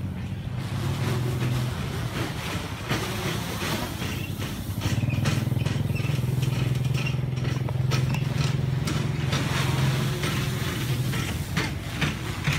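DJI F450 quadcopter in flight, its four 2217 950 kV brushless motors and propellers giving a steady low drone. The hum weakens a couple of seconds in, then comes back stronger about five seconds in and holds until near the end.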